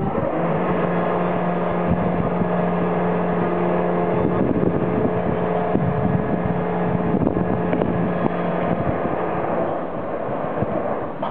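Lifeboat launch davit's hoist motor humming steadily at one pitch as it lowers the Atlantic 85 inshore lifeboat, stopping about nine seconds in as the boat settles on the water.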